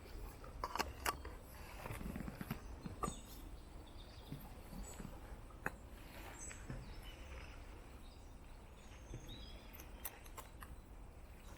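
Woodland ambience: a low steady background with faint bird calls and scattered small clicks and rustles.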